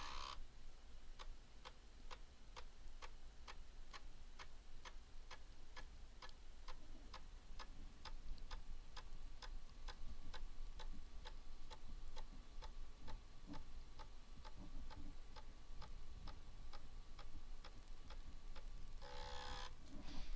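Commodore 1541-II floppy drive's read/write head stepping track by track while fast-formatting a 40-track disk: a faint, even series of sharp clicks, about two a second, one step per track. A short, louder noise comes near the end.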